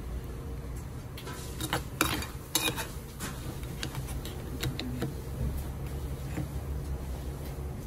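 Metal spoon clinking and scraping against a hammered metal bowl while scooping out food. The sharpest clinks come about two and two and a half seconds in, with lighter taps after, over a steady low room hum.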